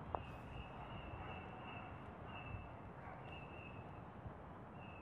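Quiet outdoor ambience: a steady low rumble with a faint, thin, high-pitched call that repeats on and off throughout. There is one sharp click just after the start.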